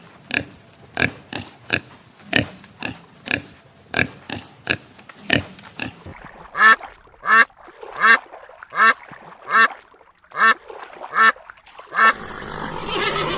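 Pigs grunting in a quick series of short calls, about two a second, turning into higher-pitched, squeal-like calls about halfway through. Near the end the calls stop and a steadier, noisier sound takes over.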